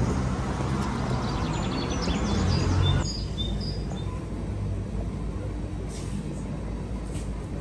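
Steady city background rumble with a few short bird chirps, cutting suddenly about three seconds in to a steadier, quieter hum.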